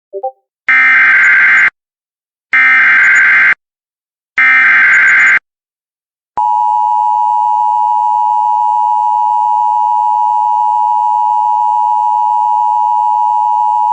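Emergency Alert System header: three one-second bursts of warbling digital data, then about a second's pause, then a long steady attention tone that runs to the end. This is the coded signal that opens a new emergency alert before its spoken message.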